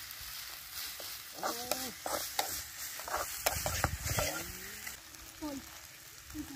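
Pounded spice paste sizzling in oil in a wok, with a metal ladle clicking and scraping against the pan. A few brief calls sound over it.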